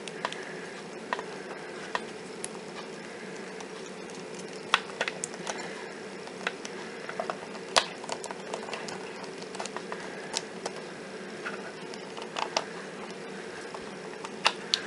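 Irregular light clicks and taps of a plastic Bandai S.H. Figuarts Bruce Lee action figure being handled and posed on a wooden tabletop, its jointed limbs and parts knocking, with a few sharper clicks scattered through. A faint steady hum lies underneath.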